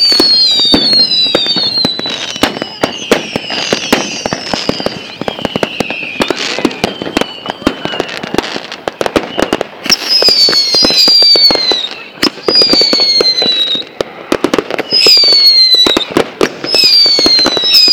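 Whistling fireworks shrieking: a run of high whistles, each falling in pitch over a second or two, over a dense crackle of small sharp pops.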